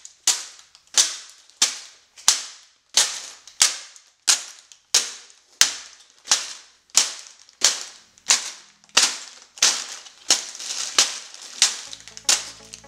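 Plastic bags of Lego pieces landing one after another on a table, with a sharp hit and a short fading tail about every two-thirds of a second. Music comes in near the end.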